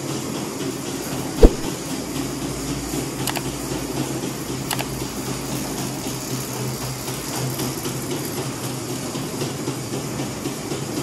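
Tea-processing machinery running steadily with a low hum. A single sharp knock about a second and a half in, and two faint clicks a few seconds later.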